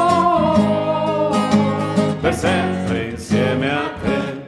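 Music: voices singing held notes over a plucked guitar accompaniment, dying away near the end.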